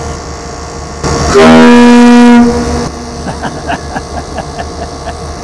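Battleship Texas's ship's whistle, sounded on compressed air after repairs, gives one loud blast at a single steady pitch. It starts suddenly about a second in, holds for about a second and a half, then dies away.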